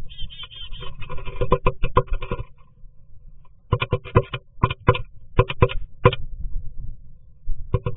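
Black-capped chickadee tapping and scratching on the wooden rim of a nest box entrance hole, heard from inside the box. A dense run of knocks and scrapes for the first two and a half seconds, then a string of separate sharp taps, and a couple more near the end.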